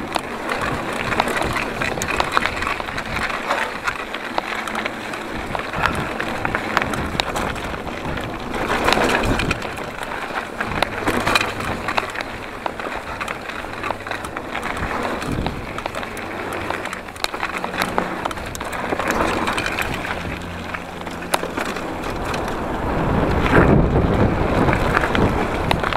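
Mountain bike rolling fast down a dry dirt trail: the 2014 Giant Trance's knobbly Maxxis High Roller II tyres grind over dirt, stones and leaf litter, with the bike rattling and clicking over bumps and wind rushing past the camera microphone. It gets louder near the end.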